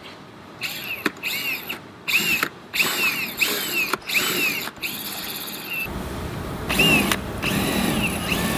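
Small handheld power tool run in short bursts, its pitch rising and falling with each burst, taking material off the edge of a repaired plastic tab. A steady low rumble joins about six seconds in.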